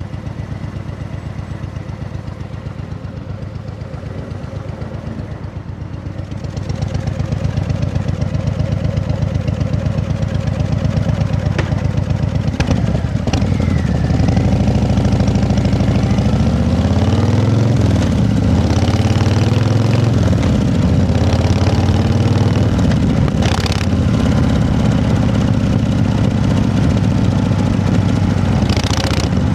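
An engine running steadily, growing louder about six seconds in, then rising and falling in pitch several times in the middle as it is revved, before settling back into a steady run.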